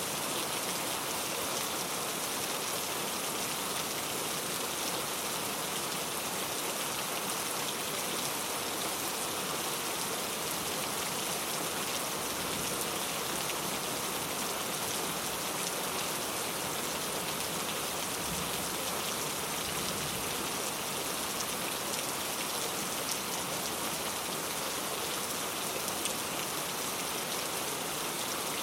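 Steady rain falling, many fine drops pattering on a surface in an even, unbroken hiss.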